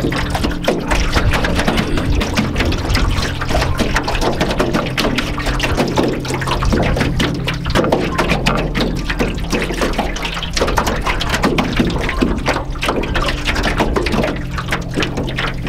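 Small lake waves lapping and slapping irregularly against an aluminum canoe hull, over a low, steady ambient music drone.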